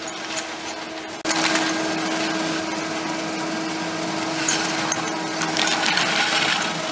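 Skis scraping and hissing over icy, slushy snow while being towed up a surface ski lift, with scattered clicks and a steady low hum. It breaks off abruptly about a second in and comes back louder.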